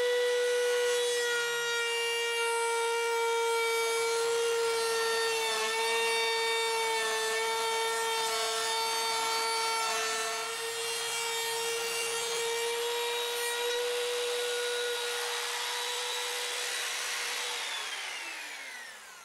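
Compact trim router with a flush-trim bit running at full speed, a steady high whine with cutting noise as it trims the edge of a cherry tabletop. Near the end the motor is switched off and the whine falls in pitch as it spins down.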